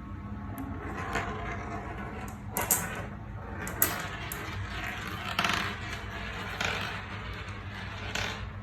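Marbles running down a marble run, with irregular sharp clicks and clacks as they drop and knock along the track, over a steady low hum.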